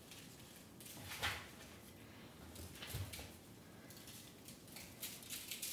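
Quiet handling sounds of hands rubbing duck fat into a raw turkey's skin: a short swish about a second in and a dull knock about three seconds in, with faint rustles between.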